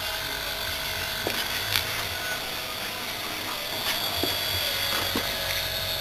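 Hermetic refrigerator compressor converted into an air compressor, running steadily with a low hum while it pumps up a small air tank, which is still at low pressure. A few faint clicks sound over the hum.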